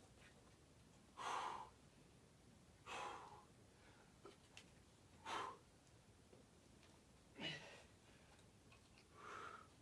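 A boulderer's sharp, forceful exhalations, five in all, about one every two seconds, from the effort of pulling through hard moves on a steep overhang.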